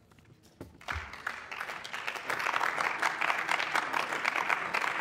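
Applause from members of a parliamentary chamber: a short low thump about a second in, then clapping that starts scattered and thickens into steady applause from about two seconds in.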